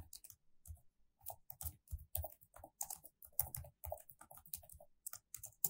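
Computer keyboard being typed on, a string of separate key clicks at uneven spacing.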